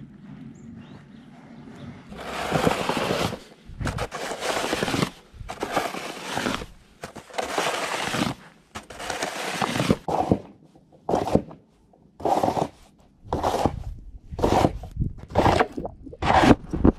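Snow shovel scraping over a snow-covered pavement in repeated pushes, starting about two seconds in. The first strokes are long; toward the end they are shorter and come about once a second.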